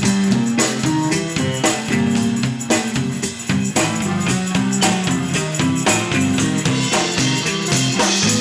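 Live rock and roll band playing, with electric guitars, bass and a drum kit keeping a steady beat.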